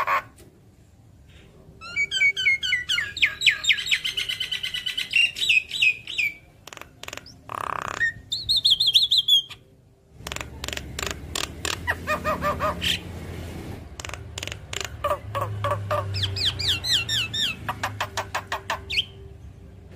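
Javan myna (jalak kebo) singing a long, varied run of fast rattling trills, rapid clicking chatter and a short high whistle about halfway through.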